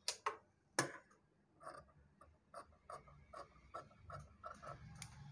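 Tailor's scissors snipping through fabric along a chalked neckline curve: two louder clicks in the first second, then a steady run of small snips, about four a second.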